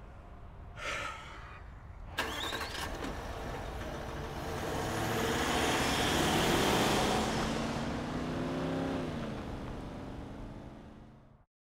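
A Range Rover SUV driving off and passing by: engine and tyre noise start suddenly, build to a peak and fade, the engine note dropping in pitch as it goes past. The sound cuts off abruptly near the end.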